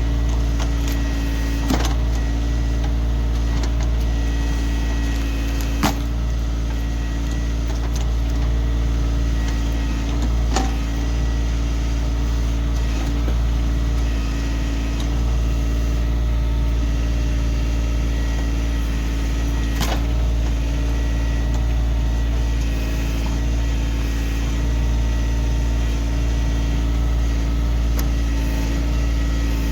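Kioti CK2610 tractor's three-cylinder diesel engine running steadily while working the backhoe, with a few short sharp knocks.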